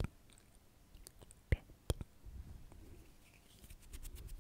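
Close-miked ASMR sounds: a few sharp clicks in the first two seconds, then soft, low rustling of hands moving right around the microphone, growing toward the end.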